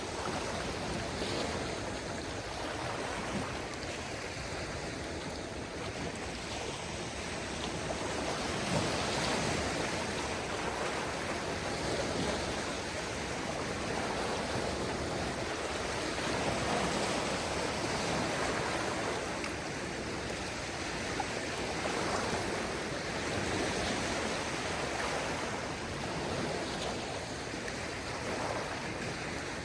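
Small waves of a calm sea washing in, a steady wash of water that swells and eases gently every few seconds.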